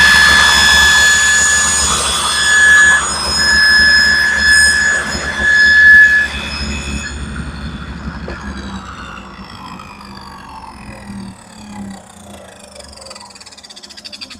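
Table saw running at full speed and cutting a dado pass, its steady high whine breaking up as the blade takes the wood. About six seconds in it is switched off and coasts down, the whine falling steadily in pitch and fading as the blade spins to a stop.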